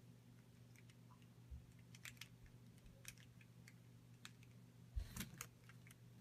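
Faint clicks of plastic speedcube pieces as corners and edges are pressed into a partly assembled Gans 356 cube, a scattering of small clicks with the loudest about five seconds in.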